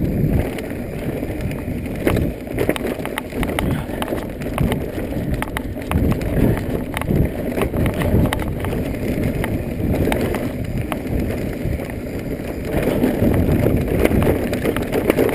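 Mountain bike ridden over rough dirt singletrack: a steady rumble of tyres on the trail, with frequent knocks and rattles from the bike over bumps and wind buffeting the microphone.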